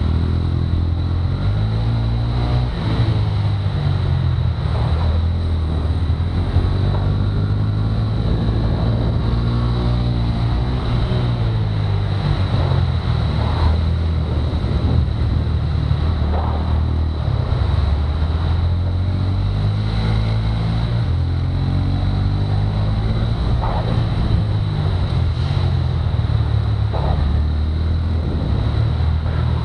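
Kart engine running hard, heard from on board, its pitch rising and falling over and over as the kart accelerates out of corners and slows into them.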